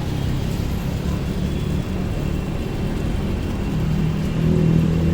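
A road vehicle on the move: a steady low rumble of engine and road noise. An engine hum grows a little stronger near the end.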